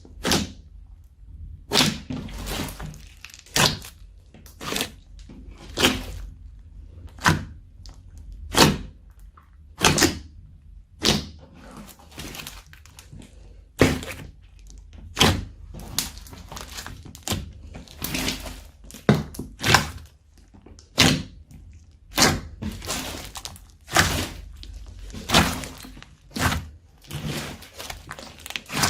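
Slime being pressed and squished by hand, giving a string of sharp pops and crackles about once a second, some in quick pairs.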